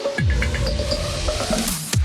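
Electronic dance music: deep bass notes sliding downward under a hiss that rises in a build-up toward the end.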